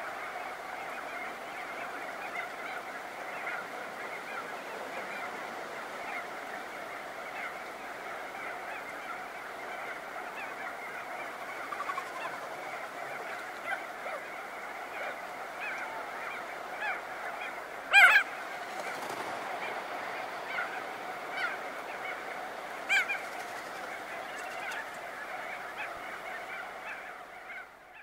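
Crested auklets calling, many birds at once, in a dense honking chorus. One close call stands out loudly about 18 seconds in and another around 23 seconds, and the chorus fades out near the end.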